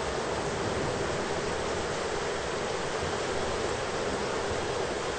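Heavy thunderstorm rain: a steady, even rush of noise with no thunderclaps.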